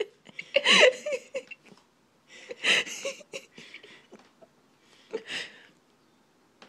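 People laughing and giggling in three short bursts.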